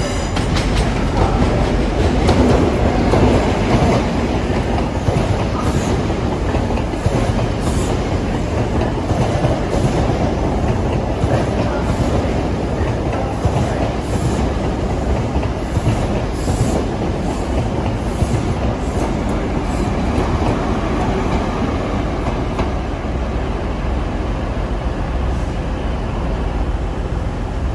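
A train running along the track, a steady noise with wheels clicking over the rail joints.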